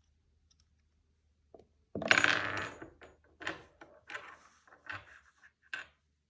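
Metal clinking, as of an 18k white gold bracelet being handled: a loud clink about two seconds in that rings on for nearly a second, then several shorter clinks and rattles.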